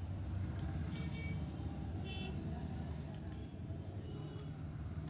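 Barber's scissors snipping a beard a few times, in sharp clicks, over a steady rumble of street traffic. A short vehicle horn toot sounds about two seconds in.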